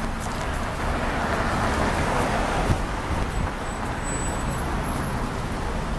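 Road traffic: a car passes close by, its tyre noise swelling to a peak about two seconds in and then fading, over a steady low rumble of other traffic.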